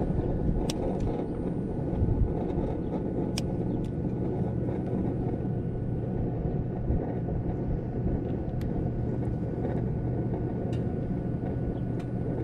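Steady low rumbling hum with a few faint ticks.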